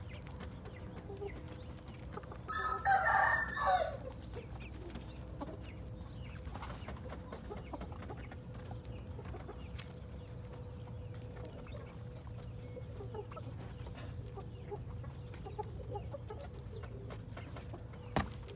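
A rooster crowing once, a loud call about a second and a half long, about three seconds in, over a faint steady hum.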